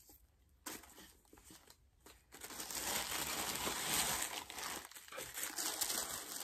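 Gift wrapping being crinkled and torn as a wrapped box is unwrapped and opened. A few soft rustles come first, then continuous crinkling from about two seconds in.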